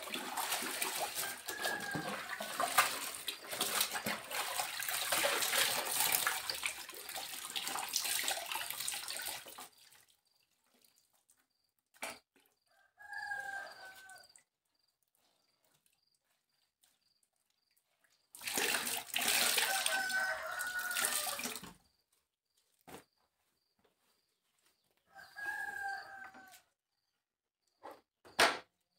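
A cloth sloshed and wrung out in a plastic basin of water, water splashing and dripping back into it for the first ten seconds. Later a chicken calls three times, each call a second or two long, with more splashing under the middle call.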